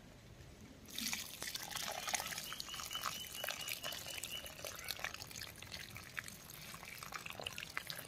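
Water poured from a plastic bucket splashing and trickling onto loose, freshly dug soil, pooling into a puddle; it starts about a second in and keeps going steadily.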